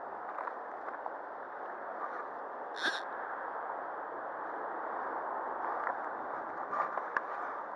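Steady rush of a shallow river running over stones and pebbles. A brief, sharp high-pitched sound cuts in about three seconds in, and a few light clicks come near the end.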